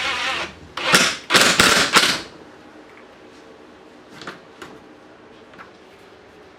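Screws being driven into a plastic front bumper lip spoiler: a run of grinding and rattling that fades, then a few loud bursts of clatter about a second in, ending after about two seconds. A few light clicks follow.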